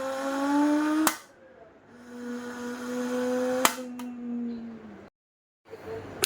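Homemade imitation of a car engine: a buzzing, pitched tone that rises slightly and stops at a sharp click about a second in, then a longer, steadier tone that sinks a little near the end, with another sharp click partway through.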